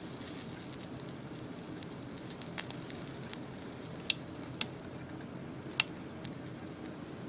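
Faint sizzling and crackling of flux and solder under a soldering iron over a steady low hum, with three sharp clicks in the middle, two close together and one a second later.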